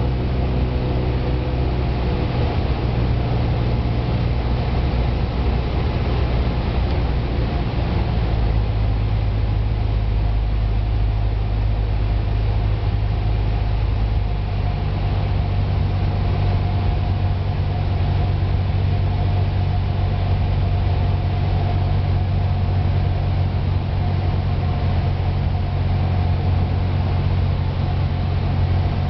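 Cessna 172's piston engine and propeller heard from inside the cabin: a steady low drone that holds even throughout.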